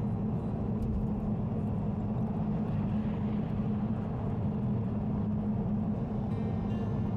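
A car cruising steadily on an expressway: even tyre and road rumble with a steady low hum and no change in engine pitch.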